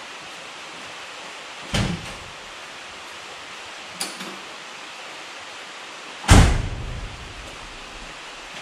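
Steady hiss broken by three knocks, about two, four and six seconds in. The last is the loudest, a heavy thump with a deep ring-out.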